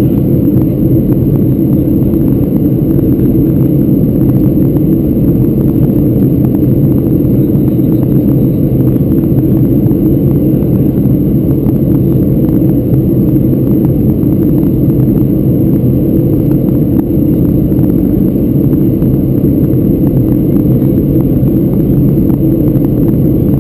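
Steady low rumble of airliner cabin noise inside a Boeing 737-600 in flight, from air rushing past the fuselage and its CFM56-7B turbofan engines, with a faint steady high whine above it.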